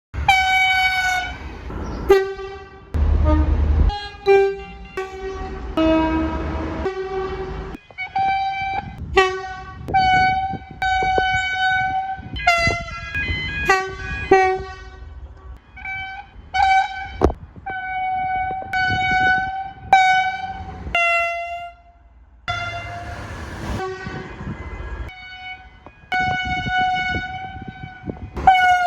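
Train air horns sounding in a rapid run of spliced clips: short toots and longer held blasts, mostly chords of several tones, each segment cutting off abruptly into the next. A low rumble of moving trains runs under many of them.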